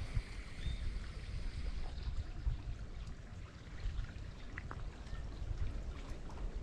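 Colorado River water flowing and lapping, with small trickles and splashes heard as scattered light ticks over a low, uneven rumble.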